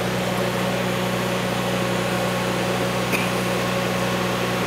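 Welding machine running with a steady, even hum, with a faint click about three seconds in.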